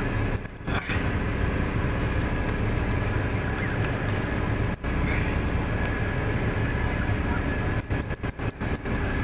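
Fishing boat's engine running steadily: a low hum with a thin steady whine above it, dipping out briefly a few times.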